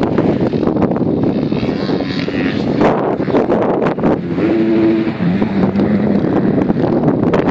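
Wind buffeting the microphone, with distant motocross bikes' engines running on the dirt track; a revving note rises out of the wind about halfway through.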